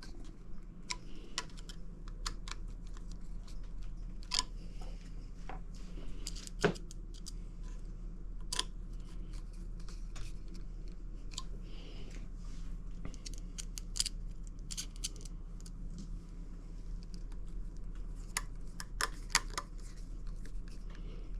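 Scattered small clicks and taps of hands handling parts and tools during an installation, over a steady low hum.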